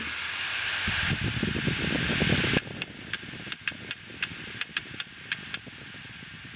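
Opened Western Digital 500 GB hard drive powering up: a rising whir with some rumble that cuts off sharply about two and a half seconds in, then about a dozen sharp, irregular clicks over the next three seconds. The clicking comes from the read/write head, which the owner believes is broken and unable to read.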